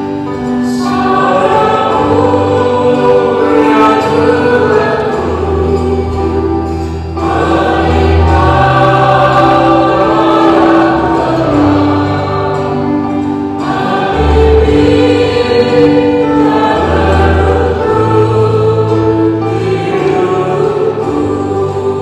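Church choir singing an Indonesian-language communion hymn in several parts, with long held notes.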